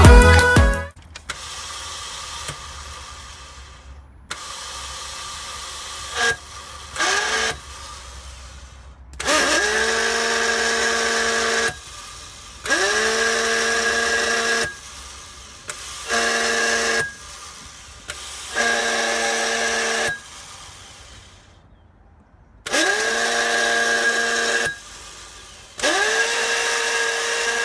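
Vauxhall Astra J 1.4 turbo engine making the intermittent fault noise its owner cannot explain: a whine that rises quickly in pitch and then holds steady for one to two seconds, repeated about eight times with quieter gaps between.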